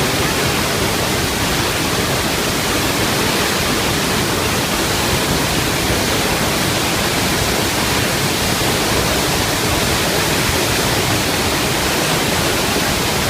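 Iguaçu Falls waterfall: a steady, loud rush of falling water with no let-up.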